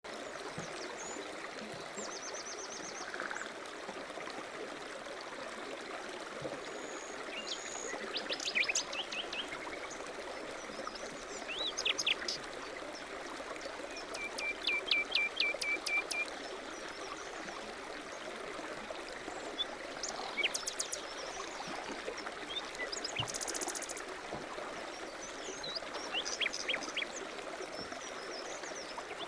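Small songbirds chirping and calling over a steady rush of flowing water, with several quick runs of repeated notes, one of about eight notes near the middle.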